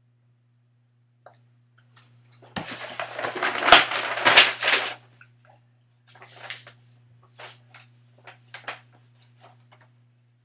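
A folded paper map being handled and unfolded: loud crinkling and rustling of stiff paper for about two seconds, then several shorter rustles as it is folded and held.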